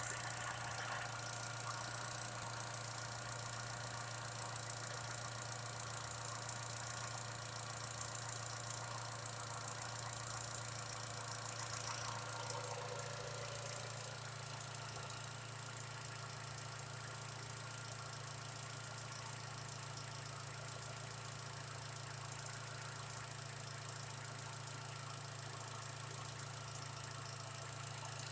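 Holden Cruze 1.4-litre turbo petrol Ecotec four-cylinder engine idling steadily, heard close up at the open bonnet, its note shifting slightly about halfway through.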